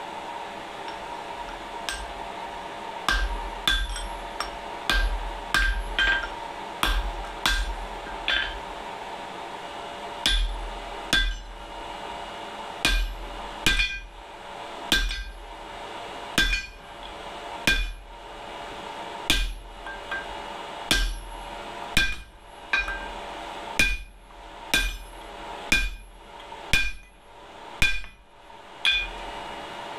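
Hammer blows on a handled top tool driven into hot steel on a blacksmith's anvil, about thirty sharp metallic strikes, each with a bright ring. They start about three seconds in at roughly two a second, then after a short pause near ten seconds go on at about one a second. A steady blower hum runs underneath.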